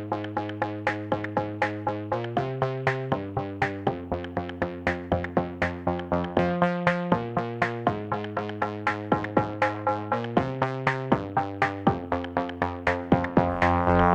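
Electronic background music: a steady beat of about three to four strokes a second under held synthesizer chords that change every second or so.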